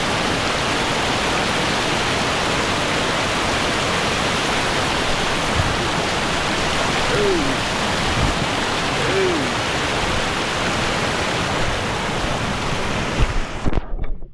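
Steady rushing water, even and unbroken. Near the end come a few knocks, and then the sound cuts off abruptly.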